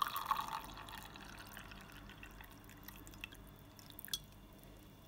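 Strained black masala tea poured from a jug into a glass tumbler: a splashing pour that tapers to a thin trickle, with a few drips about three to four seconds in.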